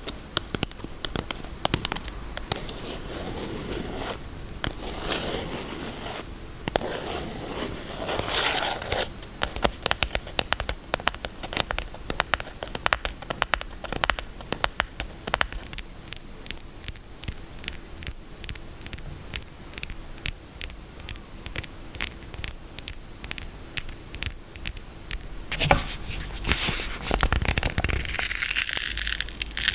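Tapping and scratching on a bar of soap and its packaging: scratching and crinkling for the first several seconds, then a long run of quick, sharp taps, then scratching again near the end.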